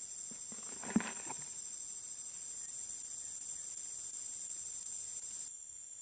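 Insects droning steadily at a high pitch, with one sharp knock and a brief rustle about a second in; the drone drops in level near the end.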